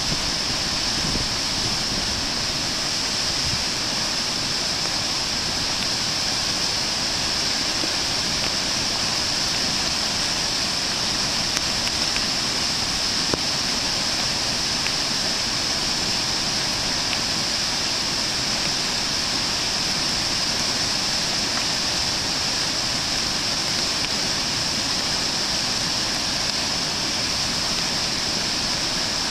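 Floodwater pouring over a low river dam: a steady, unbroken rush of falling water from a river running high and brown in flood.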